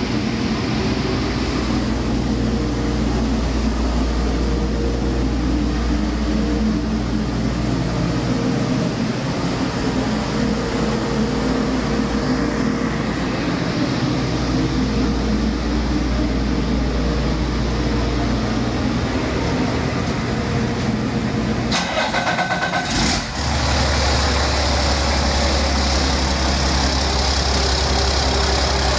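A 2005 Cummins ISL inline-six diesel engine running steadily on an engine stand. There is a brief dip in the sound about three-quarters of the way through, after which it runs on evenly.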